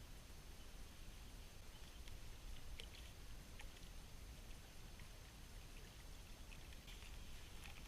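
Near silence: faint steady low rumble with a few soft, scattered ticks.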